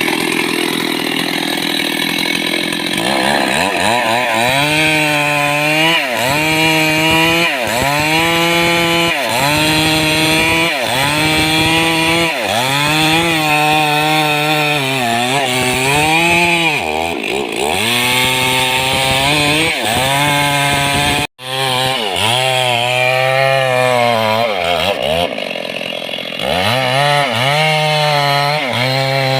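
Stihl chainsaw running at high revs while cutting mahogany. Its engine pitch sags and recovers again and again, about every second and a half, as the chain bites into the wood under load.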